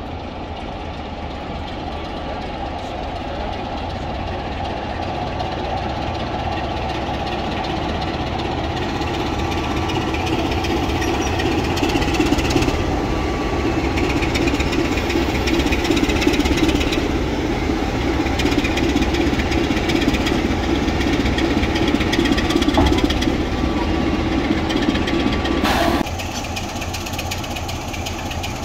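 Diesel train engine running with a steady low rumble, growing louder over the first ten seconds or so. It then holds level and drops off suddenly near the end.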